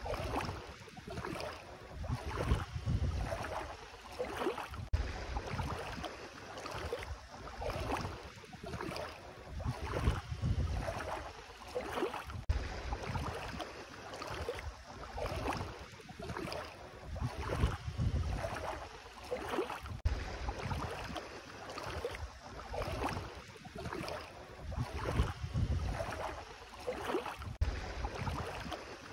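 Bare feet wading through ankle-deep sea water, sloshing and splashing about once a second with each step, over a low rumble of wind on the microphone.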